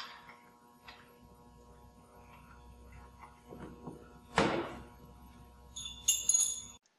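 Hand work on a truck track kit's metal hardware: a small click about a second in, one sharp thunk about four seconds in, then a wrench clinking and ringing as it is picked up off a concrete floor near the end, over a faint steady hum.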